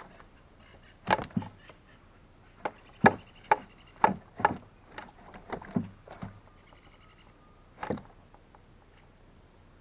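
A live pujón catfish flopping in the bottom of a wooden canoe, its body slapping the hull in an irregular series of sharp thumps that stop about two seconds before the end.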